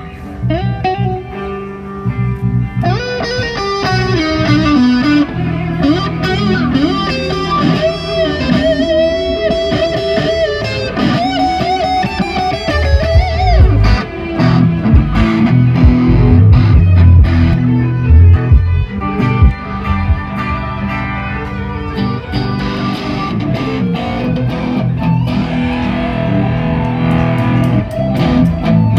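A live band playing at a sound check through a loud PA. An electric guitar plays lead lines with string bends and vibrato over bass guitar, and the low end gets heavier about halfway through.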